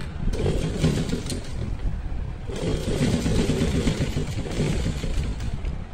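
Sewing machine stitching through fabric in two runs, the first starting a moment in and the second following a brief break about two and a half seconds in.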